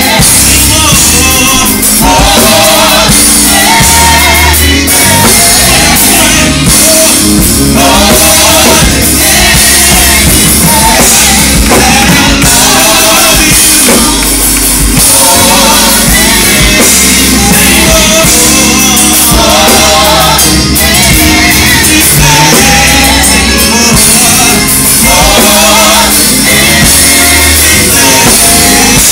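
A gospel vocal group singing live into microphones, backed by a drum kit and band. The music is loud and continuous, with several voices singing together.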